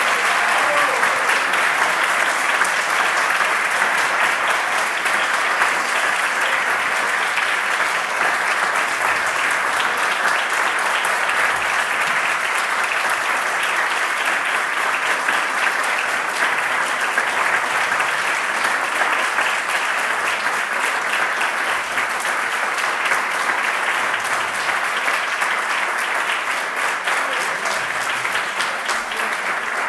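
Audience applauding steadily, a dense, even wash of hand claps.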